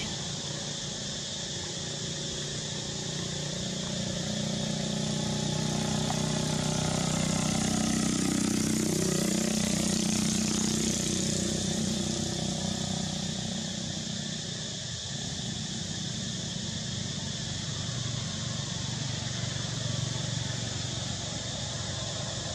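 A motor vehicle's engine passing, swelling to its loudest about halfway through and then fading, over a steady hiss of background noise.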